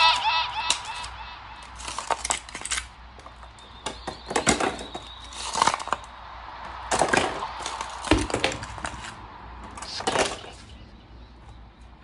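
A plastic ice cube tray being handled and twisted, with ice cubes cracking loose and clattering: irregular clicks, cracks and knocks in scattered clusters.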